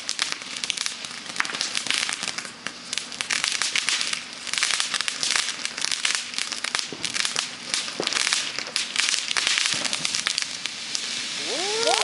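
Peacock firework burning with a dense, continuous crackle. Near the end, several overlapping rising-and-falling whistles start up.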